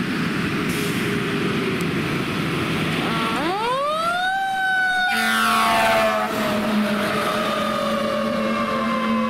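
Fire engine passing on a call, its engine and road noise steady at first. About three seconds in its siren winds up quickly to a high wail, then slowly falls in pitch as the truck goes by and pulls away. A steady low horn-like tone joins about halfway through.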